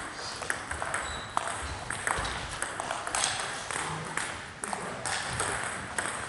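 Table tennis ball clicking off bats and table during play: a run of short, sharp ticks at irregular intervals over a steady background hiss.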